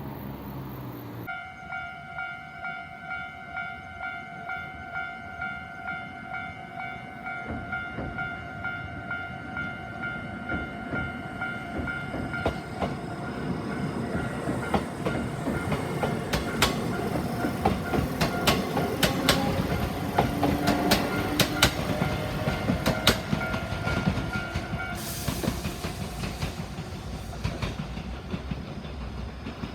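Level-crossing warning bell ringing in a steady repeating rhythm, about one and a half strokes a second, as a train approaches and passes with its wheels clacking over the rail joints. The bell stops near the end while the train is still running by.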